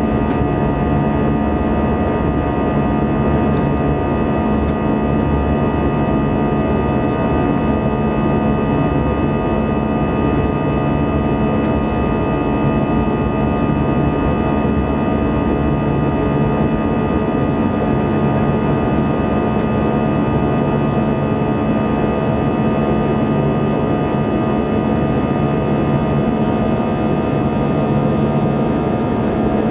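Steady cabin noise inside an Airbus A320 during the climb after takeoff: the jet engines and airflow make an even rushing drone with several steady humming and whining tones over it.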